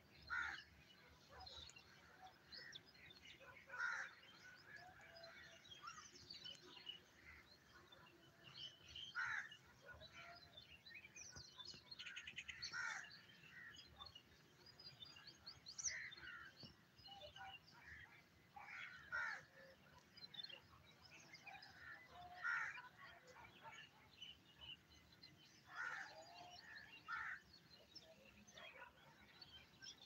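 Birds calling, faint: a louder call comes every three or four seconds over a scatter of small chirps and tweets.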